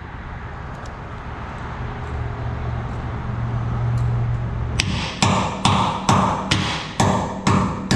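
A wrench used as a hammer, striking metal in a steady run of sharp blows, about two a second, starting about five seconds in. A low hum runs for a few seconds before the blows.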